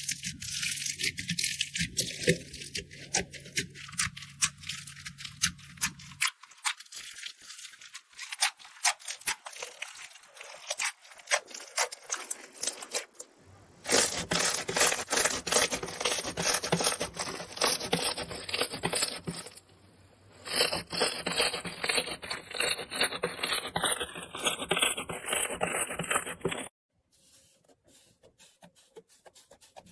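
Dry soap being cut and crushed: dense crackling and scraping, in a string of short clips that change abruptly several times.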